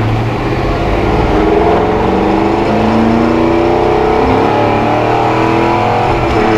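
Square-body Chevy pickup truck's engine pulling as the truck accelerates, its pitch climbing steadily over several seconds.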